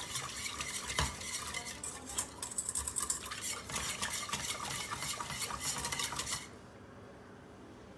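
Wire whisk rapidly scraping and clicking against a stainless steel pot, whisking cold water into a flour-and-oil roux. The whisking stops shortly before the end.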